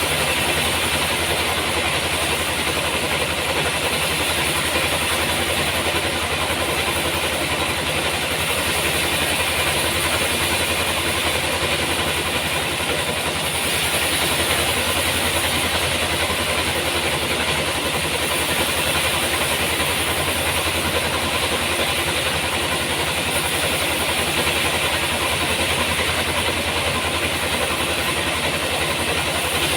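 Sawmill running steadily: a continuous mechanical drone with a hiss over it.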